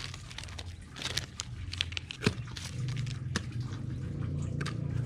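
Small handling noises as a plastic packet and a fabric pouch are picked up and set down on a table: scattered light clicks and crinkles, over a steady low background hum.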